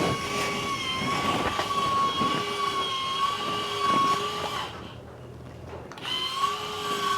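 Small 12 V DC electric motor turning the selfie-booth platform, running with a steady, slightly wavering whine. It stops about four and a half seconds in and starts again about a second later, switched off and on by remote control.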